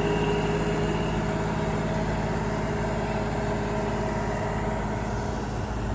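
Tractor engine running steadily at low revs, a constant hum.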